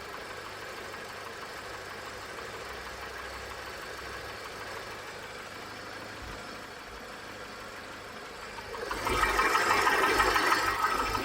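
The fully warmed-up 1.6 engine of a 2005 Citroen C4 with 370,000 km, idling quietly with some mechanical noise left. The piston knock it has when cold is largely gone once warm. The sound grows clearly louder about nine seconds in for a couple of seconds.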